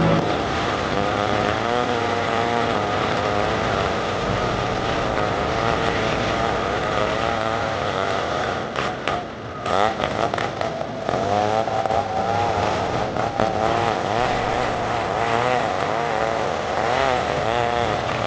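Stihl 070 two-stroke chainsaw running at high revs, its pitch wavering. About nine seconds in the engine note drops off briefly, then picks back up.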